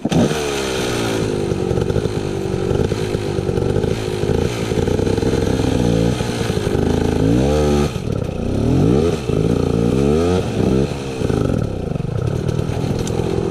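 Enduro dirt bike engine revving up and down over and over, the throttle worked hard while the bike picks its way through a rocky creek bed. It comes in suddenly at full level.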